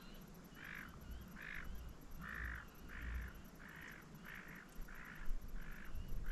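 A bird calling over and over, about nine short calls evenly spaced at roughly one and a half a second.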